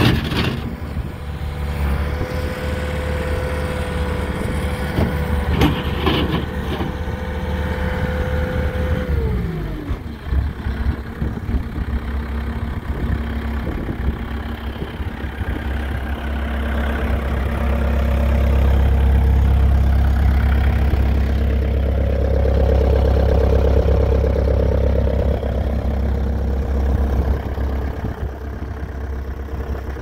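2005 Bobcat T300 tracked skid steer's diesel engine running. About nine seconds in its pitch falls as it drops back to a steady idle.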